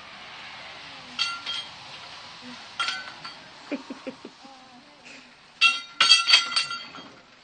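Short bursts of high clinking and ringing, three times: briefly about a second in, again about three seconds in, and a longer, louder cluster near the end.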